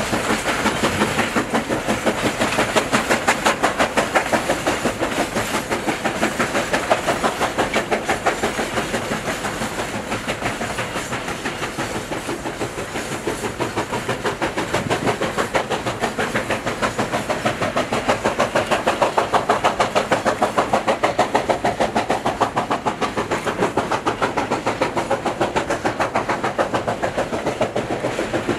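Steam locomotive working hard, its exhaust chuffing in a rapid, even rhythm as it hauls a train.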